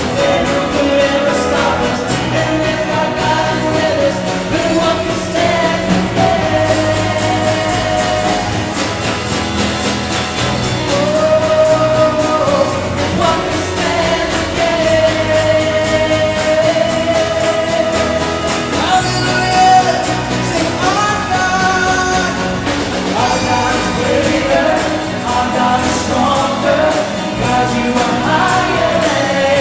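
Live church worship band: women's and a man's voices sing held melody lines together over drums and guitars.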